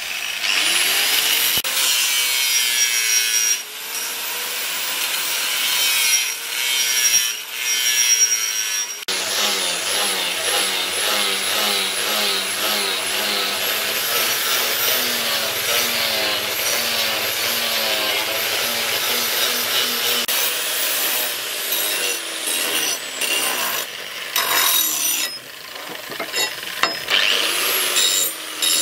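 Hand-held electric angle grinder with an abrasive disc grinding a steel axe head, the motor's whine wavering in pitch as the disc bears on the metal. In the last few seconds the grinding turns choppy as the disc is taken on and off the steel.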